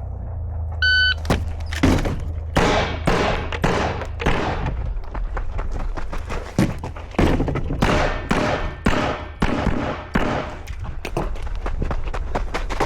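An electronic shot timer beeps once, about a second in, then a string of gunshots follows, roughly two shots a second with brief pauses between groups, as a shooter works through a timed IDPA stage.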